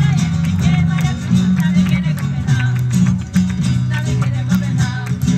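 Live flamenco music led by a strummed acoustic guitar, with a steady beat of sharp, regular strokes.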